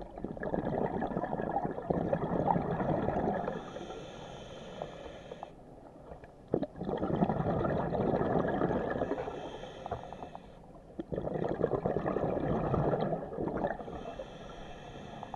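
Scuba diver breathing through a regulator underwater: three long bursts of exhaled bubbles gurgling past the camera, each followed by a quieter inhale with a thin high hiss from the demand valve.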